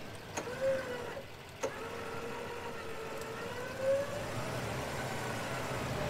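A truck running slowly under light load, with a steady whine that wavers a little in pitch, and a few sharp clicks in the first couple of seconds.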